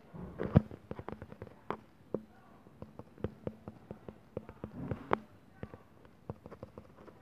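Fingers tapping out a message on a smartphone's touchscreen keyboard: a string of light, irregular clicks, several a second, with one louder knock about half a second in.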